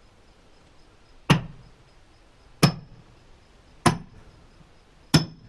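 Splitting maul striking steel splitting wedges driven into a black oak log, four hard metallic strikes about a second and a quarter apart, each with a short ring, as the wedges are driven in to split the log half into quarters.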